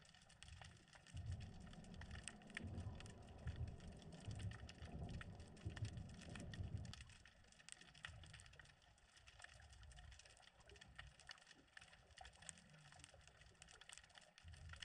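Faint underwater ambience from a submerged camera: a steady scatter of tiny crackling clicks, with a low rumble through the first half that drops away about seven seconds in.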